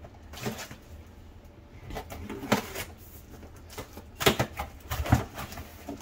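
Cardboard box being opened by hand: a few short knocks and scrapes of the flaps and packaging, the loudest about four and five seconds in.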